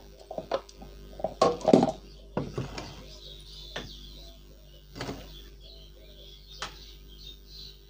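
A few scattered knocks and clicks of handling, loudest about one and a half seconds in, as an analog multimeter in a wooden box is set down and its range selector knob is turned. A faint steady hum runs underneath.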